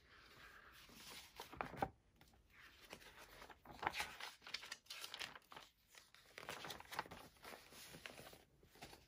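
Faint rustling and swishing of a picture book's paper pages as the book is opened and the pages are turned, in short, irregular strokes.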